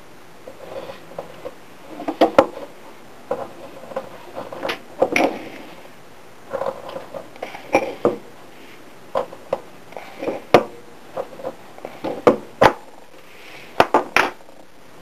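Heavy tin snips cutting a narrow strip of 16-gauge German silver (nickel silver) sheet in short bites: an irregular series of sharp metallic snips and crunches as the blades close, with brief pauses between them.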